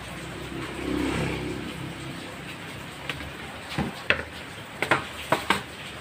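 Steady heavy rain falling on a puddled yard. About a second in, a low rumble swells and fades, and near the end there are a handful of sharp clicks.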